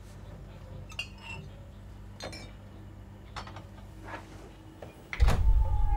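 Bottles clinking and knocking against each other and the wire shelf as a bottle is taken from a shop's drinks cooler, in a few separate light clinks. About five seconds in, a loud low drone with a held tone cuts in suddenly.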